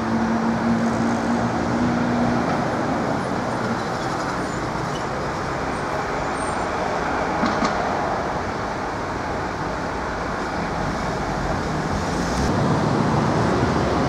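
Steady city street traffic noise, with a vehicle's steady hum in the first couple of seconds.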